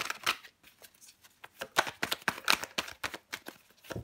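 Tarot deck being shuffled by hand: the cards click and slide against each other in quick irregular runs, with a short pause about half a second in before the shuffling picks up again.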